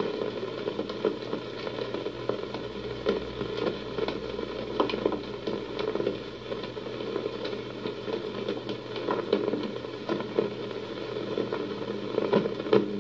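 Crackling, hissing background noise with many faint irregular ticks, the surface noise of an old film soundtrack.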